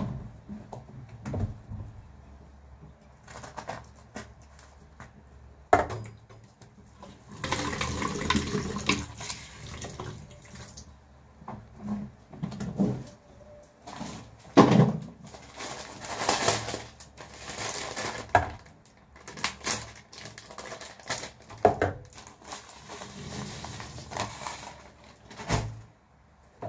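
Water running in short spells, with scattered knocks and clatter of kitchen items being handled.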